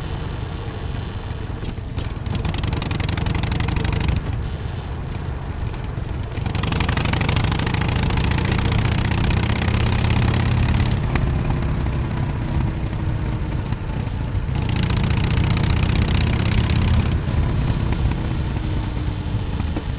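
Harley-Davidson Dyna Super Glide Custom's V-twin exhaust while riding, the throttle opening and closing. It grows louder and brighter about a third of the way in and again past the middle, and eases off in between.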